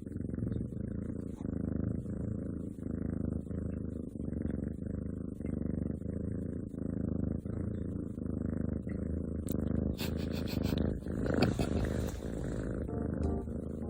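Domestic cat purring close to the microphone, the purr swelling and fading in even pulses with its breathing. A louder scuffing noise comes about eleven seconds in.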